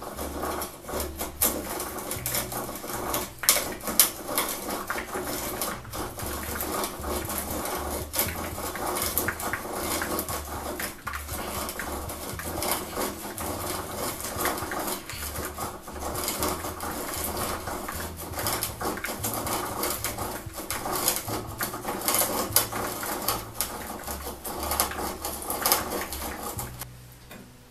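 Hand-cranked Millers Falls No. 12 breast drill boring a No. 22 (1-3/8-inch) auger bit through pine: a continuous grinding of gears and cutting wood with a low rhythmic rumble and many sharp clicks and snaps. The sound stops near the end.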